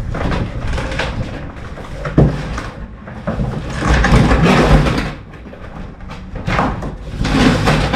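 Cardboard rustling and scraping with knocks as an electric lawn mower is lifted and pulled out of its shipping box. There is a sharp knock about two seconds in, and a louder stretch of scraping about four seconds in.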